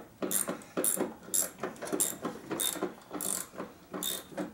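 Ratchet wrench being worked in quick short strokes, its pawl clicking about three times a second.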